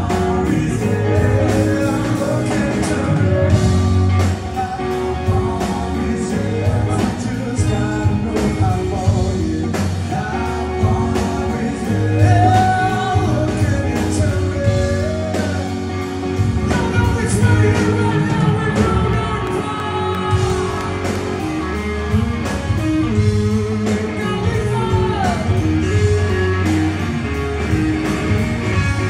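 A blues-rock trio playing live: electric guitar, bass guitar and drum kit with a man singing, heard from the audience seats in a concert hall. Near the end the two front players leave their microphones and it turns into a guitar-and-bass instrumental passage.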